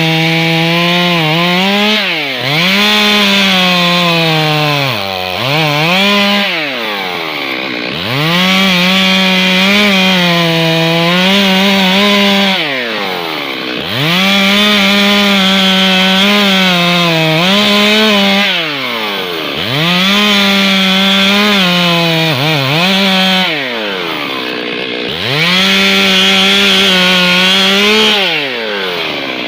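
Stihl MS 382 two-stroke chainsaw running at high revs while cutting wood. The revs drop sharply and pick up again every few seconds.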